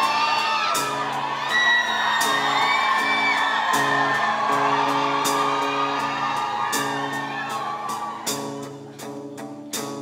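Live band playing a song's intro, with electric guitar chords over a steady beat. Audience screaming and whooping over the music through the first half, dying down toward the end.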